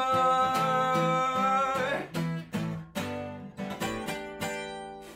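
Steel-string acoustic guitar strummed while a man's voice holds a long sung note. About two seconds in the voice stops and the guitar goes on alone with a run of separate chord strums, getting quieter toward the end.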